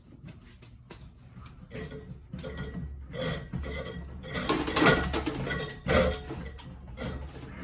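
Metal ceiling-fan parts clattering and clinking as the fan is smashed apart: a quick run of rattles and knocks starting about two seconds in, loudest around five and six seconds in.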